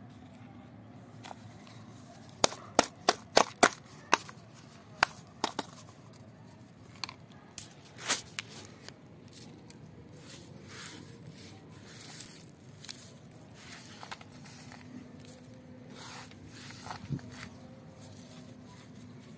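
Hands gathering loose potting soil mixed with dry leaf bits from a tiled floor and adding it to a plastic plant pot. A quick run of sharp clicks and crackles comes in the first few seconds, then softer scraping and rustling.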